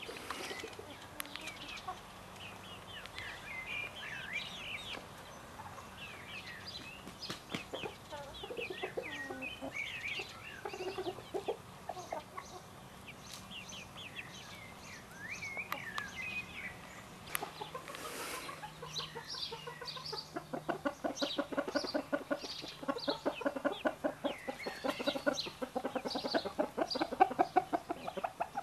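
Young gamefowl chickens peeping steadily with high, short calls. About two-thirds of the way in, a fast series of low clucks starts, several a second, growing louder toward the end.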